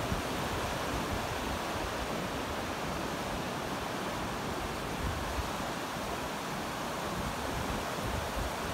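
Steady wash of ocean surf on the beach, a continuous even rush, with light wind rumbling on the microphone.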